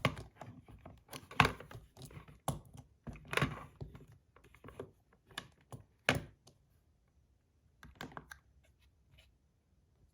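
Irregular clicks and knocks of metal fidget toys, a zirconium and an aluminum Pillbug, being handled and set down for weighing, with the sharpest knocks about a second and a half and six seconds in.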